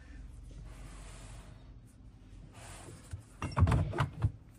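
A few short knocks and clicks from steel tooling being handled, a vise set and its holder, clustered about three seconds in after a faint hiss.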